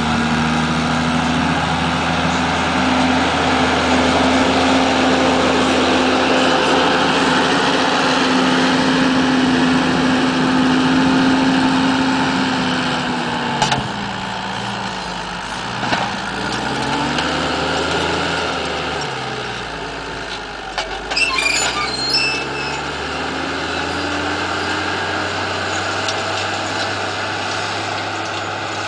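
New Holland TM155 tractor's diesel engine working steadily under load while pulling a reversible plough. The engine note drops as the tractor passes close by about halfway through, then runs on lower as it pulls away. A few short clinks come near the passing and again about three-quarters of the way through.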